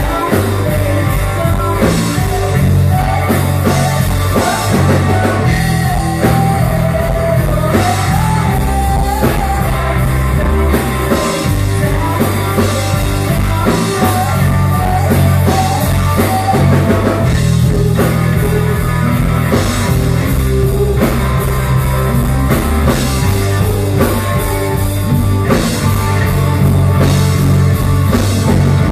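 Live rock band playing loud: electric guitars and a drum kit with a singer on the microphone.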